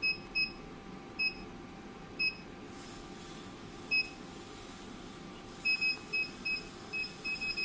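Touchscreen control panel of a vacuum roller cavitation machine giving one short, high beep per button tap as the vacuum power setting is stepped up and down: a few scattered beeps, then a quick run of about eight near the end. A faint steady hum runs underneath.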